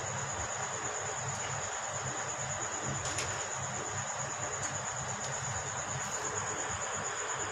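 Steady high-pitched insect trill, finely pulsed and unbroken, over a constant background hiss; a faint click about three seconds in.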